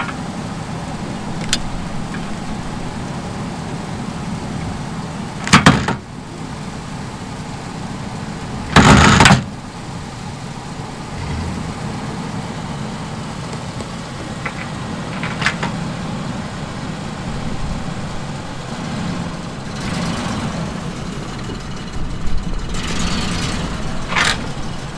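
A vehicle engine idling steadily, broken by two loud bangs about five and a half and nine seconds in, with a few fainter clicks.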